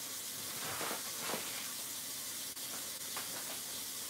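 Steady sizzling hiss of food cooking on the stove.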